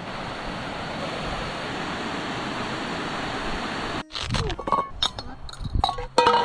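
Steady hiss of rain and running water that cuts off abruptly about four seconds in, replaced by a scatter of light clinks and knocks.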